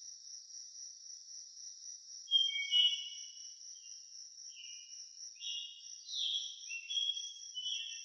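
A steady, high-pitched, insect-like trill runs on. From about two seconds in, a string of short, high whistled chirps joins it, many falling in pitch, the loudest near the start of the string.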